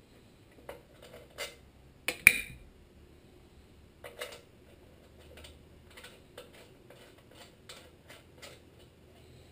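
Small metallic clicks and clinks of a bolt being started by hand into the sheet-metal shroud of a Tecumseh HM80 engine, with one sharp metal clank about two seconds in and a run of fainter, fairly even clicks in the second half.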